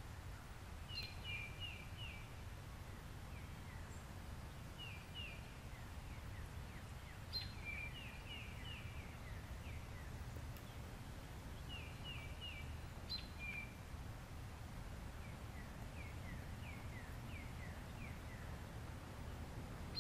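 A songbird singing short phrases of quick, high chirps, repeated every few seconds, over a steady low rumble of outdoor background noise.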